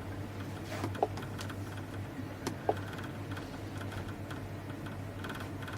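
A few soft clicks and taps over a steady low hum: one about a second in and two close together about halfway through.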